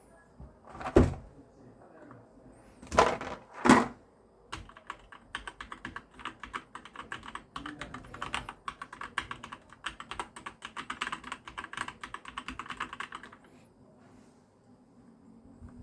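Typing on a Keychron K10 mechanical keyboard with brown switches: a rapid run of key clicks lasting about nine seconds, stopping a couple of seconds before the end. It is preceded by three heavier knocks in the first four seconds.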